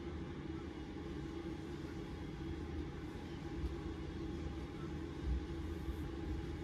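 Steady low rumble of a car driving, heard from inside the cabin: road and engine noise with no words.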